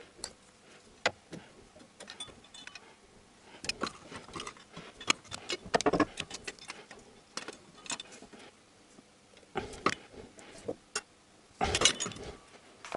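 Ratchet clicks and metal clinks from hand tools in irregular bursts as the timing pulley bolt is tightened with a wrench while the pulley is held with a holding tool, taken to 60 N·m.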